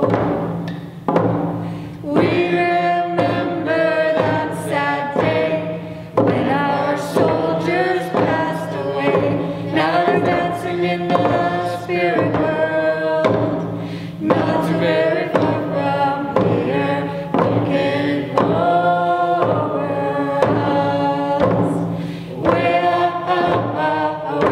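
Hand drum song: several voices singing together, accompanied by round frame drums struck with beaters in a steady beat.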